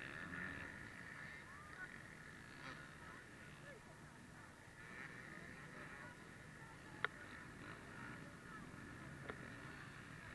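Several dirt bike engines revving at a distance, a buzzy blended drone with short rises and falls in pitch as the bikes work through the course. A single sharp click about seven seconds in, and a fainter one two seconds later.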